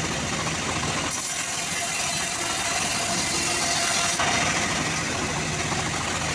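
Homemade band-saw mill running and ripping a teak log: a steady machine drone with the noise of the blade cutting through the wood. The cutting noise changes in character about a second in and again about four seconds in as the log is fed through.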